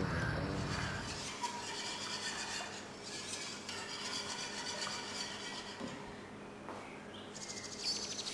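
Metal wire whisk stirring sauce in a steel pan, with small scrapes and light metal-on-metal clinks.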